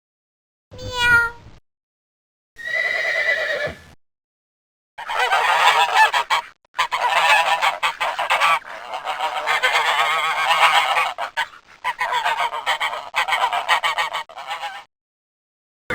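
Flock of geese honking, many calls overlapping, for about ten seconds with a couple of brief gaps. Before it come two short separate animal calls, the first a cat's meow.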